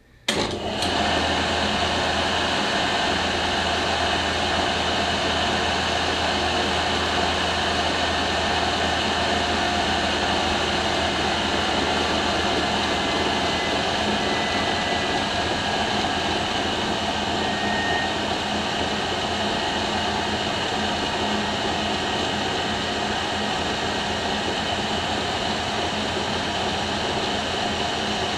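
Electric bench motor switched on, belt-driving an alternator: it starts abruptly and then runs steadily with a constant whirring hum.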